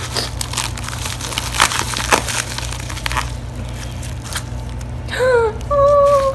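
Album packaging crackling and clicking in the hands as it is handled. About five seconds in a short wordless voice sounds, one falling note and then a held one.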